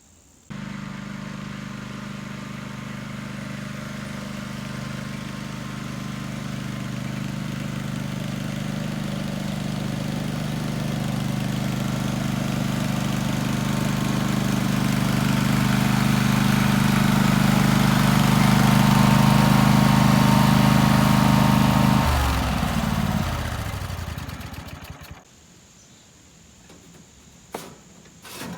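Small-engine vehicle running steadily and growing louder, then shut off, its engine note falling as it winds down and stops about 22 seconds in.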